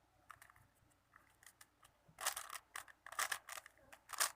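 5x5 Rubik's cube being turned by hand, its plastic layers clicking and scraping as they rotate: a few faint ticks at first, then quick clusters of clicks from about two seconds in.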